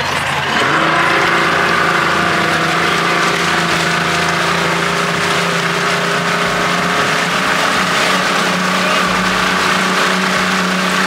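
Motorboat engine running steadily under load while towing a banana boat, with water rushing in its wake. The engine's pitch rises slightly about half a second in, then holds steady.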